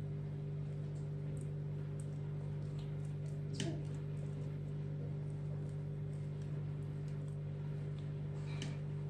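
A steady low hum of a few held tones, with faint soft squishes and light ticks from fingers pressing dimples into soft, risen yeast dough in a round baking tray; one sharper click about three and a half seconds in.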